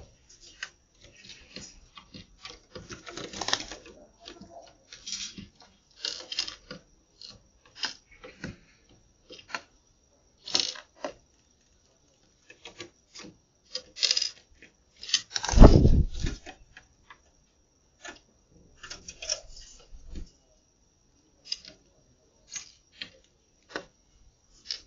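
Spotted doves and a sparrow pecking grain off a feeder ledge: irregular sharp taps of beaks on the surface, with one louder thump about two-thirds of the way through.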